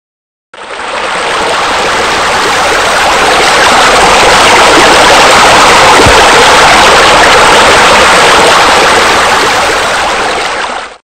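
Steady rushing water, a water-feature sound effect. It starts abruptly about half a second in, swells slightly, then cuts off just before the end.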